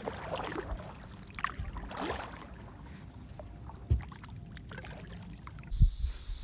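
Kayak on a river: light paddle and water sounds with small knocks against the hull, and a louder thump about four seconds in. A steady hiss comes in near the end.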